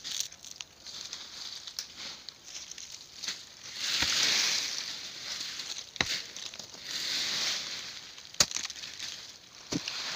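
Hand hoe chopping into dry soil while a planting pit is dug: irregular sharp strikes every second or two, with stretches of soil and dry leaves scraping between them.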